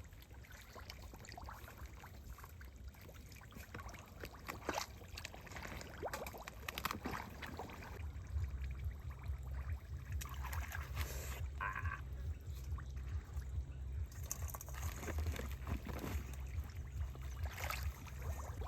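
Water splashing and trickling in small irregular splashes, over a steady low rumble.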